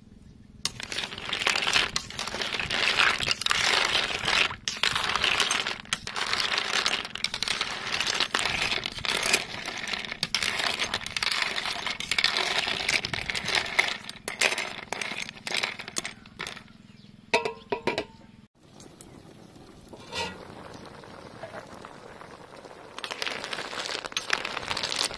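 Snail shells clattering and clinking against a metal pan as they are stirred, a dense run of small knocks that stops abruptly about seventeen seconds in. After a quieter stretch, from about twenty-three seconds in, a steady hiss of sizzling as the snails steam in the hot pan.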